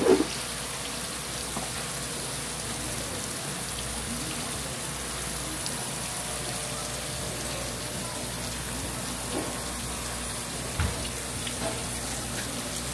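Steady rush of running water, with a short knock right at the start and another about eleven seconds in.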